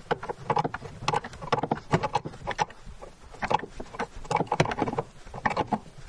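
Irregular knocks, taps and scuffs of hands-on plumbing work: a copper tub-spout pipe and its threaded fitting being handled and worked into a drop-ear elbow, a few sharp knocks to the second.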